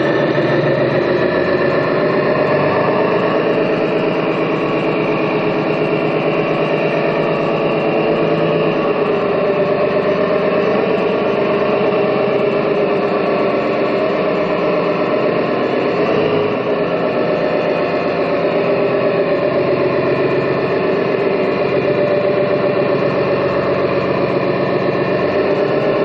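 Radio-controlled MAN tipper truck model driving slowly, giving a steady engine-like drone whose pitch wavers a little, over a hiss.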